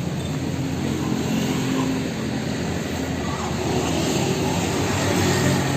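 A vehicle engine idling steadily: a low, even hum with a slight wavering in pitch.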